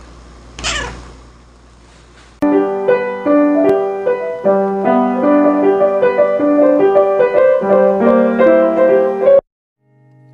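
Grand piano notes picked out by a cat's paws on the keys, single notes and overlapping held ones over a sustained low note. They start about two and a half seconds in and cut off abruptly near the end. Before them comes a brief falling swoosh.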